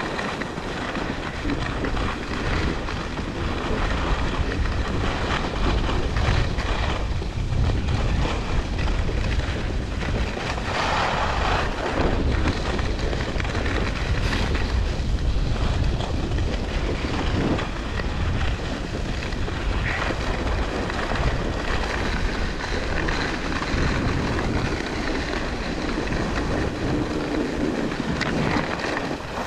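Wind rushing over the microphone during a fast ski descent, with skis hissing and scraping on groomed snow; the hiss swells and eases every few seconds with the turns.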